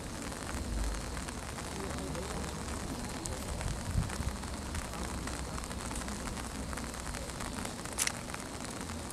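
Outdoor crowd ambience: a steady noisy hiss and low rumble with faint distant voices, and sharp clicks about four and eight seconds in.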